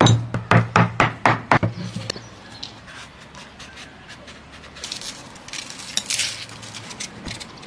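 A knife chopping on a wooden board in quick, even strokes, about four a second, stopping about two seconds in. Then comes softer scraping and rustling with scattered clicks.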